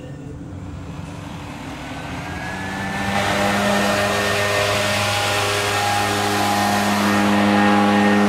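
Backpack leaf blower's two-stroke engine revving up about two seconds in, then running steadily at high throttle with a constant rushing noise.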